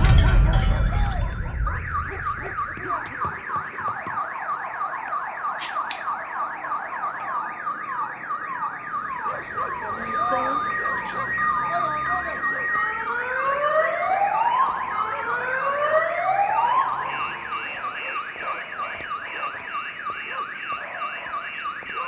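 The low rumble of a blast dies away over the first two seconds, then several car alarms go off together. Their overlapping warbling tones repeat over and over, with rising sweeps about two-thirds in and a steady pulsing tone after that.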